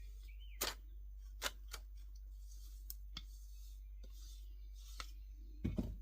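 A few light clicks and knocks as a spatula scrapes thick cake batter out of a mixing bowl, with a duller knock near the end.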